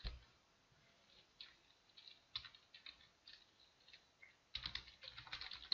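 Faint computer keyboard typing: a few scattered keystrokes, then a quick run of keystrokes near the end.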